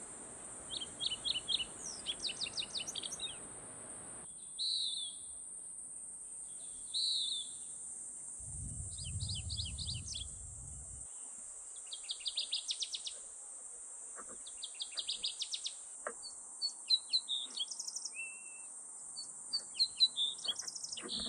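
Small birds chirping in repeated quick runs of short high notes, with a steady high-pitched hiss beneath and a brief low rumble about halfway through.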